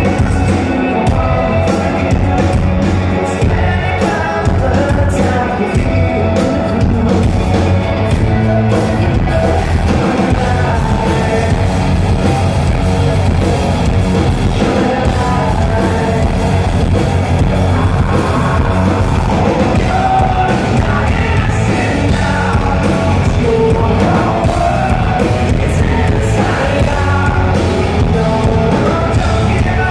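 Hard rock band playing live and loud through a club PA: electric guitar, bass guitar and drums, with a lead vocal singing over them, heard from the crowd.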